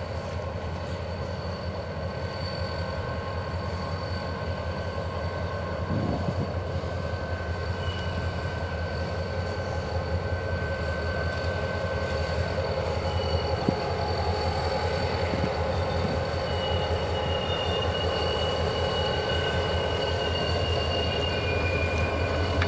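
A train rolls past with a steady low rumble, and its wheels squeal in thin high tones that come and go. The sound grows gradually louder, with an occasional knock.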